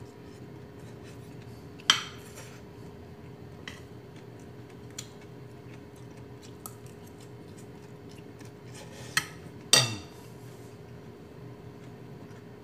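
Spoon and fork clinking and scraping against a plate while eating, in scattered sharp clinks: one loud clink about two seconds in and a loud pair near the end, with lighter taps between.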